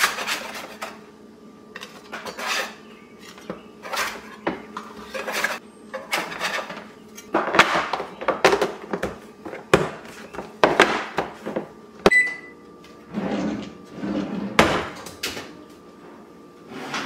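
Kitchen handling sounds: a metal spatula scraping and clacking on a dark baking sheet as biscuits are lifted off, and a plastic storage container and its lid knocking as it is closed, in a string of irregular clicks and knocks. Near the end an oven door is opened.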